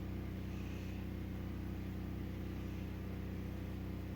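Steady low background hum of several fixed tones, with faint hiss, unchanging throughout: a running machine or appliance.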